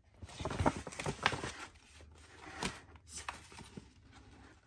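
Kraft paper packaging rustling and crinkling as it is handled, mostly in the first couple of seconds, with a sharp click about halfway through and a few lighter rustles after.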